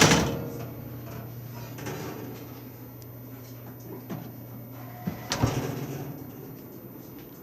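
A loud knock or clunk, then a steady low hum, and a second clunk about five and a half seconds in, when the hum stops.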